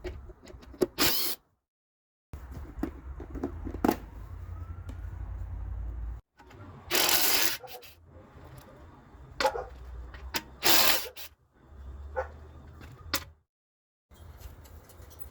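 Workshop sounds of work on a small engine: scattered clicks and knocks of metal tools, with a few short louder rasping bursts over a low hum. The sound cuts out abruptly between clips three times.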